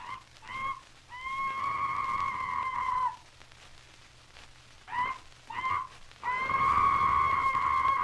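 Animal-cry sound effect played from a 78 rpm record: two short cries, then a long held cry at a steady high pitch that dips as it ends, the whole pattern given twice. Record surface hiss and crackle lie underneath.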